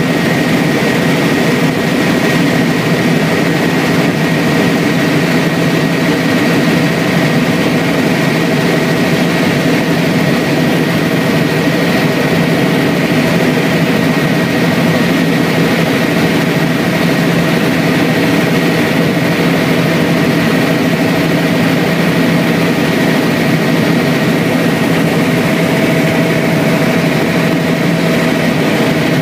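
Helicopter in flight, heard from inside the cabin: a loud, steady drone of rotor and engine with a thin, constant high whine over it.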